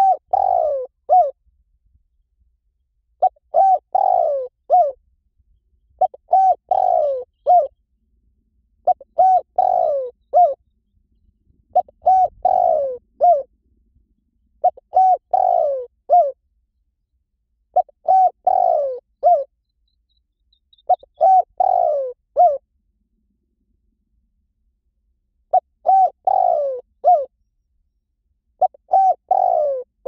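Spotted dove cooing: about ten phrases of three or four soft notes each, one note sliding down in pitch, repeated roughly every three seconds with a longer pause about two-thirds of the way through.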